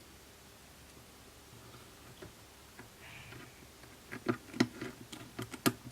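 Small screwdriver and tiny screws clicking against a springy bracket inside an iPhone 6s as it is held down and screwed in: quiet at first, then a run of sharp clicks about four seconds in.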